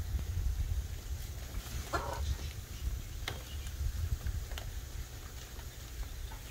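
Hybrid macaw giving one short call about two seconds in, with a few faint clicks, over a steady low rumble.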